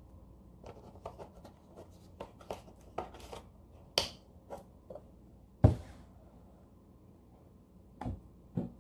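Light clicks and taps of handling on a tabletop, then a single sharp knock, the loudest sound, about six seconds in. Near the end come two knocks as a carton of skimmed milk is set down on the table.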